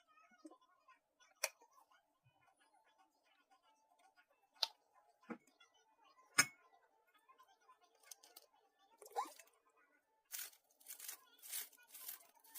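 Handling sounds: a few separate sharp clicks and knocks, then a quick run of short tearing sounds in the last two seconds or so.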